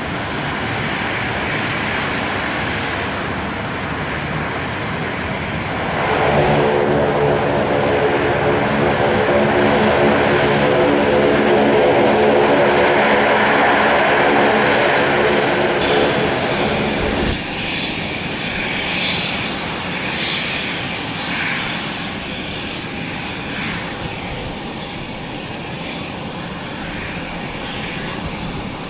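Four-engine turboprops of a Lockheed CC-130J Hercules running as it taxis, a steady propeller drone with many even tones that grows louder about six seconds in. About seventeen seconds in, the sound changes abruptly to the steady high whine of an Aero L-39 Albatros's jet engine as it taxis.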